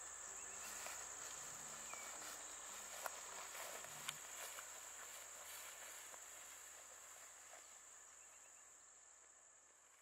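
Steady high-pitched drone of field insects such as crickets, fading out gradually toward the end, with a few faint clicks.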